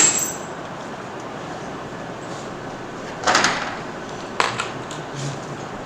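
Steady room hiss with a sharp knock at the start, a short scraping rustle about three seconds in, and a single click a second later.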